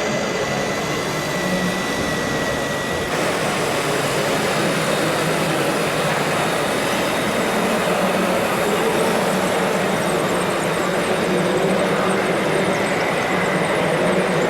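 Steady motor and gear whirring of radio-controlled model trucks and construction machines over a constant wash of noise. A thin high whine cuts off abruptly about three seconds in.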